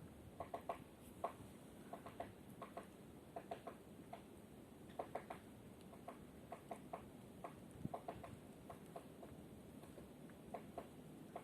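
Woodpecker pecking at wood: sharp, irregular taps, single or in quick clusters of two to four, rather than a fast drumming roll.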